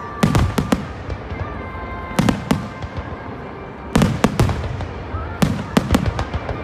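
Aerial fireworks bursting: sharp bangs in clusters of two or three, about every one and a half to two seconds, each with a booming low echo after it.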